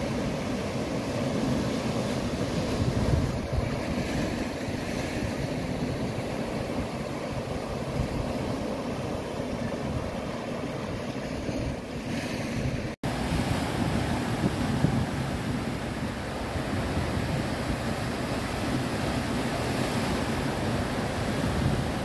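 Sea waves surging and breaking over granite shore rocks, a continuous rushing wash of surf. The sound cuts out for an instant about thirteen seconds in.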